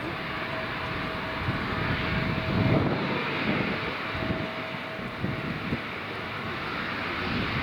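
Airliner engines running in a steady, even rush of noise with a faint steady tone that fades out about two-thirds of the way through, while gusts of wind buffet the microphone with low, uneven rumbles.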